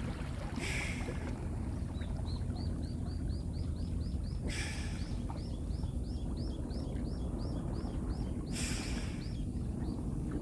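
A bird calling in a long, even series of high chirps, about three a second, over a steady low rumble, with three short hissing bursts about four seconds apart.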